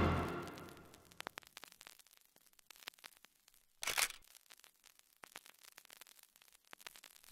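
Brass music fades out within the first second, leaving faint, scattered clicks and crackles like an old-film static effect. A louder crackling burst comes about four seconds in.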